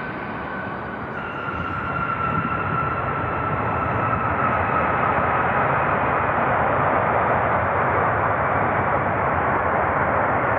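Jet airliner's engines passing close: a loud rushing noise that grows louder about two seconds in, with a high engine whine slowly falling in pitch.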